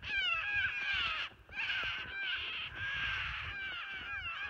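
A flock of white cockatoos calling harshly in a dense, overlapping chorus, with a brief lull about a second in.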